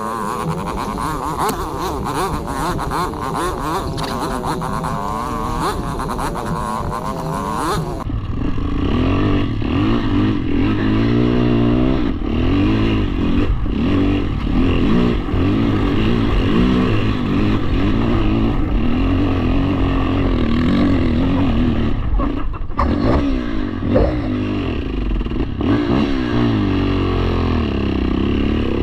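ATV engine running hard while riding, its pitch rising and falling with the throttle. About eight seconds in the sound changes abruptly to a deeper, louder engine note that keeps revving up and down.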